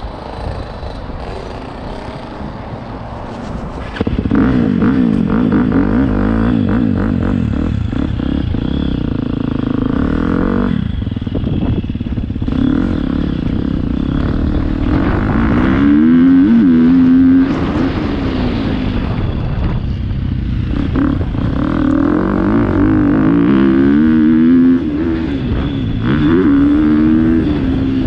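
Motocross bike engine heard from the bike itself. It runs at low revs for the first few seconds, then opens up hard about four seconds in. The revs then climb and drop again and again as the throttle is worked along the dirt track.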